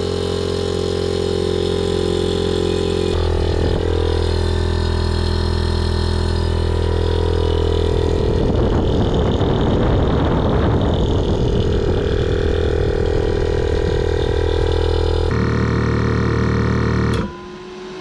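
VIAIR constant-duty onboard air compressor running steadily as it charges its air tank, a loud mechanical drone, with its add-on cooling fan running alongside. Near the end the compressor cuts off abruptly as its pressure switch reaches about 150 PSI, leaving only the fainter cooling fan running.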